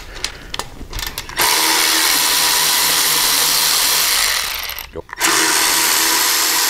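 Milwaukee M12 cordless ratchet spinning out the half-inch bolts of a motorcycle exhaust hanger bracket. A few light clicks come as the socket is fitted, then the motor whirs steadily for about three seconds, stops briefly, and whirs again.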